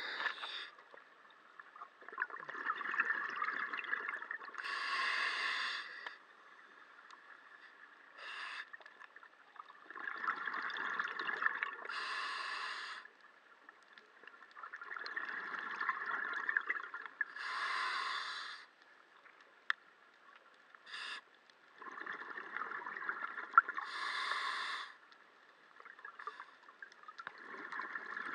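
Scuba regulator breathing heard underwater: slow breaths about every six and a half seconds, each a rush of air and bubbles that ends in a short, brighter burst, with quiet gaps between.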